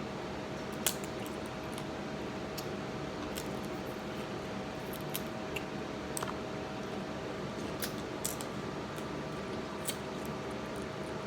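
Scattered light clicks and taps of food and utensils being handled, about ten in all and irregularly spaced, over a steady hum.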